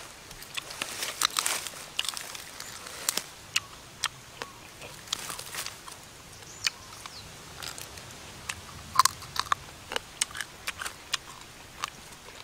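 Charred, crisp skin and meat of a grilled pig head being pulled apart by hand and chewed: a run of irregular sharp crackles and crunches.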